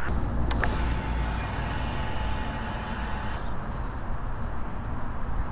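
Ducati Panigale V4S's V4 engine idling with a steady low rumble, under a higher hiss that stops about three and a half seconds in.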